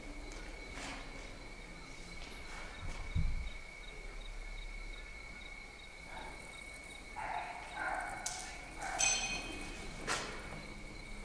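A cricket chirping steadily in the background, with a few scattered footsteps and scuffs on a concrete floor.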